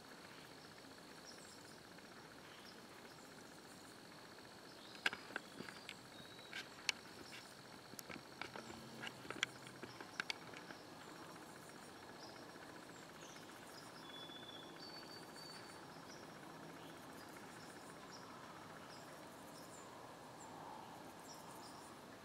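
Faint evening ambience of steadily trilling insects such as crickets, with a few short high bird chirps. About five seconds in comes a run of sharp clicks and taps lasting around five seconds.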